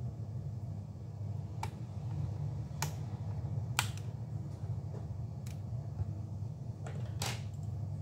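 About five sharp little clicks of plastic and metal, a second or so apart, as a laptop hard drive and its ribbon connector are pried and lifted out of the drive bay, over a steady low hum.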